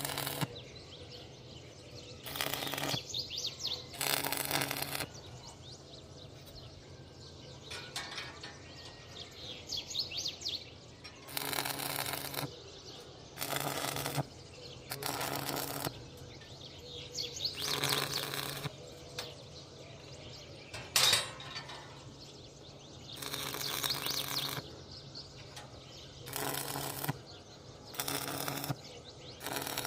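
Electric welding arc crackling in about a dozen short bursts of a second or so each, like a run of tack welds on iron bars, with a steady low hum between them.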